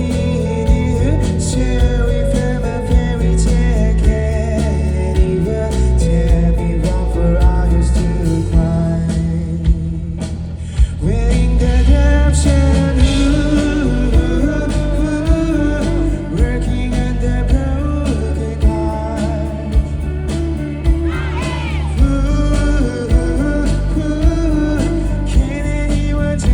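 Live band playing a rock song with drums, bass, guitar and singing. The music thins out briefly just before ten seconds in, and the full band comes back in about eleven seconds in.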